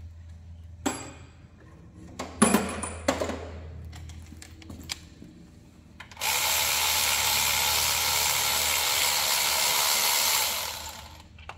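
Tools and metal parts clattering, with a few sharp knocks in the first three seconds. Then a power tool runs steadily for about four seconds and winds down.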